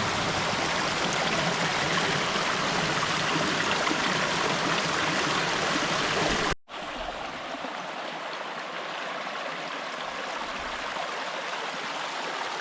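Small mountain creek running over rocks: a steady rush of water. It cuts off abruptly about halfway through and picks up again quieter and thinner.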